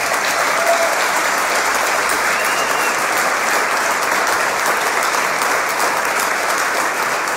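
A roomful of people applauding, steady clapping at an even level.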